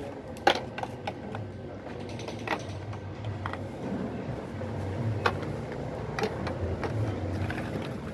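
Scattered sharp plastic clicks and clacks as gel pens are handled and set into an acrylic display stand, the loudest about half a second in, over a low steady hum.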